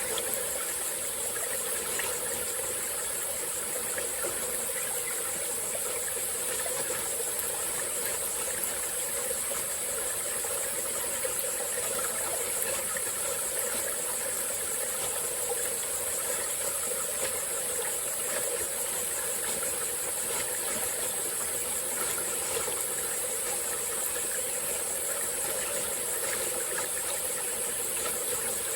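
Water of a small tropical-forest stream flowing steadily over rocks, with an unbroken high-pitched insect chorus running over it.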